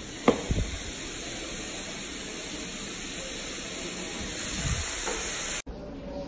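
Steady hiss, with a soft thump a fraction of a second in as a foot steps onto a digital floor scale. The hiss cuts off suddenly near the end.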